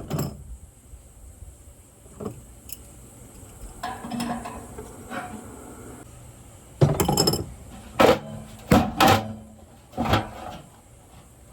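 Irregular knocks and clatter of tools and metal parts being handled while a blower motor assembly is worked on. There are a few isolated knocks in the first half, then a run of sharper, louder strikes in the second half.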